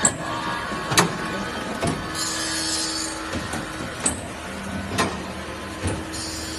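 Saw-blade tooth grinding machine running: a sharp click about once a second, with bursts of high grinding hiss every few seconds over a low steady hum.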